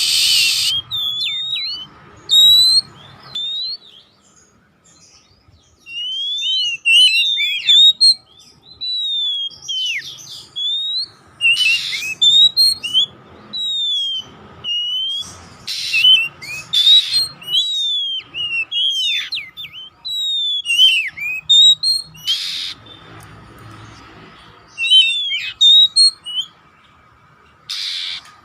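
Oriental magpie-robin of the black-bellied 'kacer poci' form singing: a varied run of loud whistled notes sliding up and down, broken every few seconds by short harsh rasping calls.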